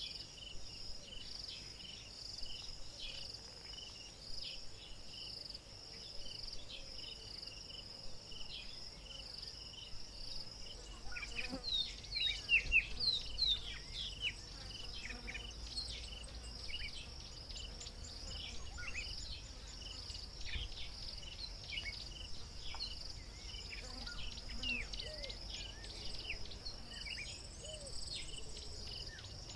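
Bush ambience: insects trilling in a steady pulsing chorus, with birds chirping in quick high downward notes from about a third of the way in, busiest just after that.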